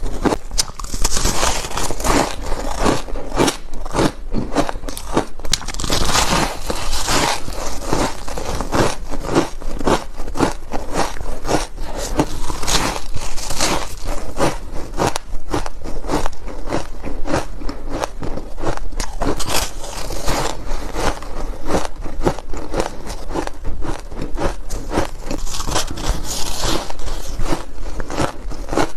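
Ice being bitten and chewed close to the microphone: continuous rapid crunching and crackling, with many sharp cracks following one another.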